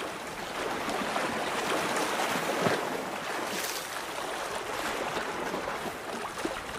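Steady wash of river water and wind: an even hiss with no distinct events.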